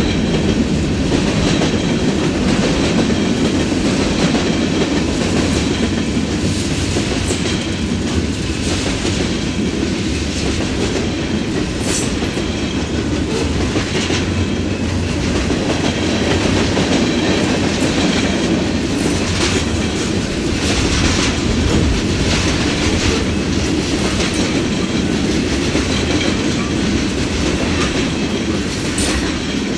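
Freight train of covered hopper cars and tank cars rolling past: a steady rumble of steel wheels on rail with irregular clicks and clacks over the joints, easing off slightly near the end.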